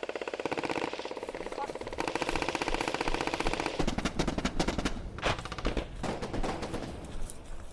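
Airsoft guns firing on full-auto: a rapid, evenly spaced clatter of shots held for about three and a half seconds, then shorter bursts and scattered single shots.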